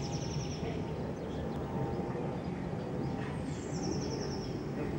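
Twin-engine jet airliner passing low overhead, its engine noise a steady low rumble. A small bird gives a quick high trill twice, right at the start and about three and a half seconds in.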